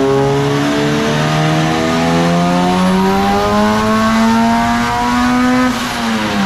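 Turbocharged 1.6-litre Honda D16 four-cylinder engine in a Civic under a full-power dyno pull, its note climbing steadily in pitch for about six seconds, then falling away near the end.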